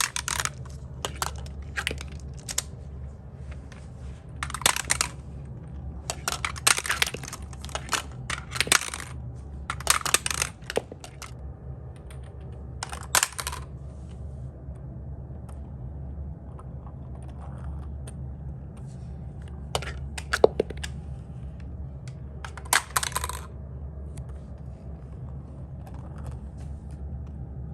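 Marbles rolling and clattering down a magnetic-tile marble run, with clusters of rattling clicks every few seconds.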